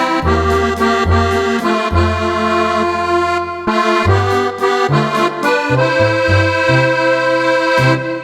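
Roland FR-4X digital accordion played: a melody over bass notes that change every half second or so, ending on a held final chord that dies away near the end.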